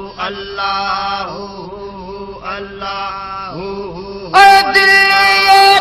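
Male voices chanting 'Allah' over and over in a devotional zikr, over a steady low drone. About four seconds in, a much louder solo voice comes in and holds a long sung note.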